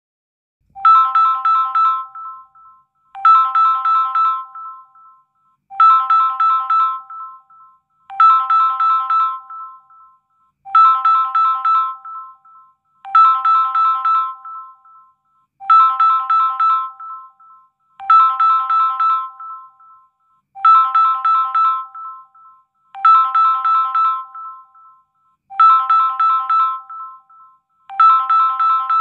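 Incoming-call ringtone on a Samsung phone running One UI 3: a short phrase of several notes, each phrase fading away, repeated about every two and a half seconds while the call rings.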